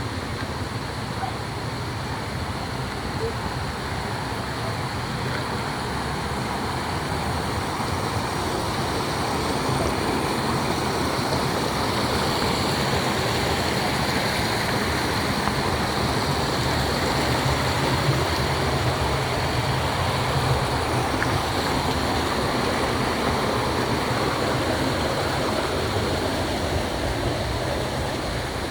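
Flowing water rushing steadily, as a stream or river does, growing a little louder after about eight seconds.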